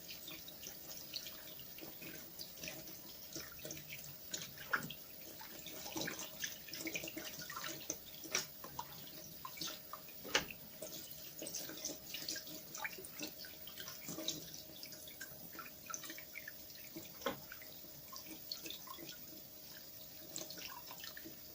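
Raw chicken wings being washed by hand in water: irregular splashing and dripping in a sink.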